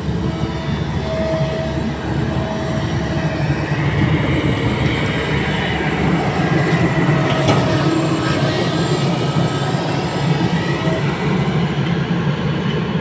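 Kobelco SK200 hydraulic excavator's diesel engine running steadily under load as the bucket digs mud out of a ditch, with a single sharp knock about seven and a half seconds in.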